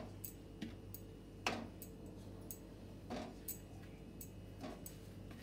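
Faint light clicks and taps, irregularly spaced about every half second to second with one sharper click about one and a half seconds in, as raw dough balls are set down on the wire grill of a litti maker; a faint low steady hum underneath.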